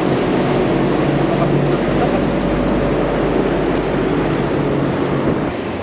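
Yamaha outboard motor running at speed on an inflatable boat, with wind and water rushing past. The engine note fades near the end.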